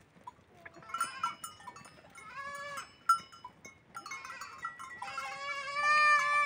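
Goat kid bleating: a short call about two and a half seconds in, then a long drawn-out bleat from about five seconds in to near the end, with a few faint knocks in between.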